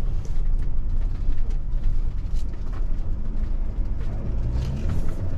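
Hymer MLT 580 4x4 campervan driving slowly along a sandy track, heard from inside the cab: a steady low engine and road rumble.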